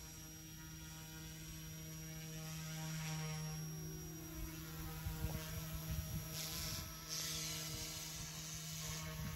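Electric radio-controlled helicopter in flight: its rotor and motor make a steady low hum with a ladder of higher overtones, the pitch wavering slightly about three seconds in. From about five seconds in, wind buffets the microphone.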